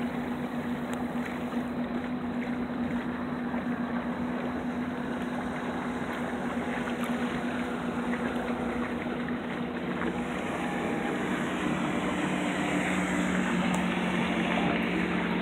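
A boat's motor running steadily over wind and water noise; its hum shifts lower about ten seconds in and grows a little louder.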